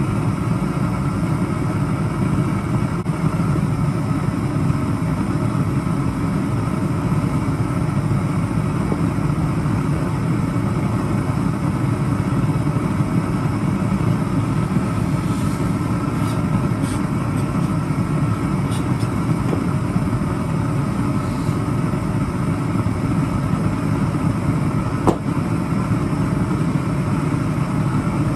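Propane burner running with a steady, even rush of flame while a steel rod is heated in it, with one sharp click near the end.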